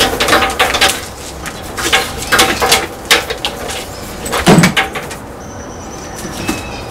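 An electrical cable being pulled and fed by hand through a bus engine compartment: irregular rustling, scraping and clicking of the wire against surrounding parts, with one louder thump about four and a half seconds in.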